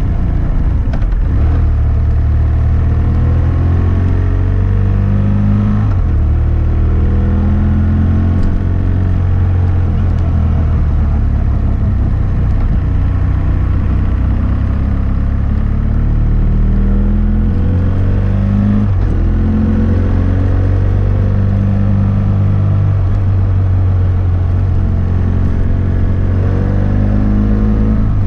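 2006 BMW F800S parallel-twin engine running through a GPR Furore Nero aftermarket exhaust with dB-killer, heard from a microphone mounted on the bike while riding. The revs climb and drop repeatedly as it accelerates and eases off.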